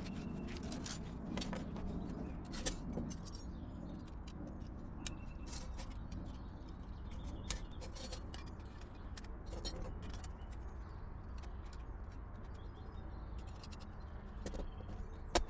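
Scattered light metal clicks and clinks as the perforated metal plates of a folding Bushbox stove are taken from their fabric pouch and slotted together, with some fabric rustling in the first few seconds and a sharper click near the end.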